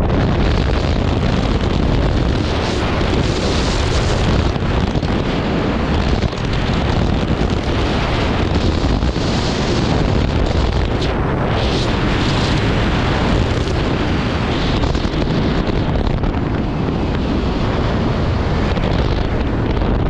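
Wind buffeting the microphone during paraglider flight: a loud, steady rush of airflow with no pauses, swelling a little a few times.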